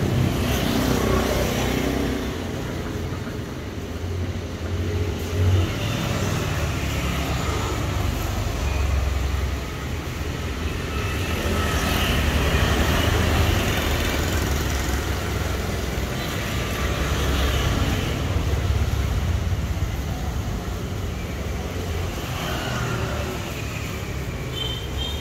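Road traffic passing outside, a continuous low rumble that swells and fades as vehicles go by.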